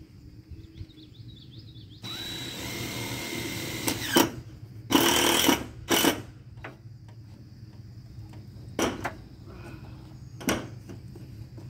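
Power drill driving screws through ribbed metal roof panels: a steady motor run of about two seconds, then a series of short, loud bursts as screws are driven in.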